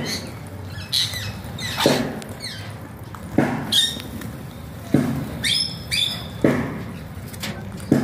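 A flock of Alexandrine parakeets giving loud, harsh squawks, one sharp call about every second, some coming in quick pairs.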